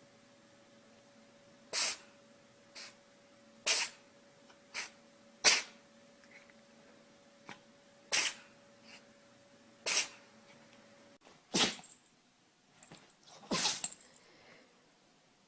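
Pets sneezing again and again: short, sharp sneezes, about eight in all, spaced a second or two apart, the last one longer.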